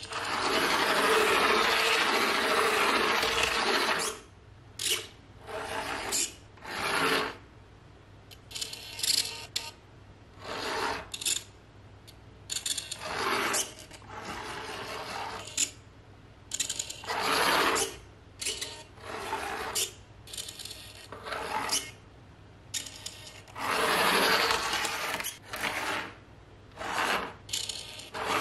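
Micro RC pickup truck, a 1:67-scale Toyota Hilux diecast converted to radio control, driving in spurts on a wooden tabletop: the raspy whir of its tiny drive motor and wheels on the wood. It starts and stops many times, the longest run at the start.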